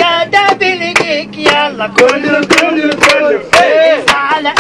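Singing voices with sharp, loud percussive beats about twice a second, typical of a hand drum or clapping.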